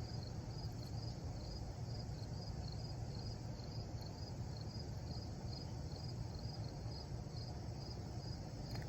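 An insect chirps steadily, a high-pitched pulse repeating about three times a second, over a steady low rumble.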